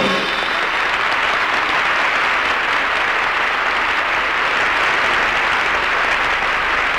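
Large audience applauding steadily: a dense, even clapping that runs on without a break.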